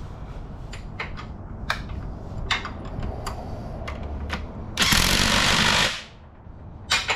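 Scattered sharp metal clicks and clanks from hand tools during a transmission installation, with a loud rushing noise burst of about a second roughly five seconds in.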